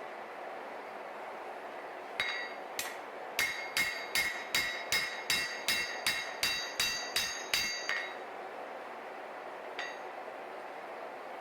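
Hand hammer striking a Damascus steel knife blade on an anvil during forging, each blow ringing. Two slower blows come first, then a steady run of about three blows a second for some four seconds, and one last single blow near the end.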